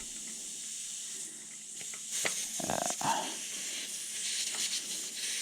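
Air hissing steadily out of an e-bike's rear tire through the open valve stem with its Schrader valve core removed, letting the tire down quickly.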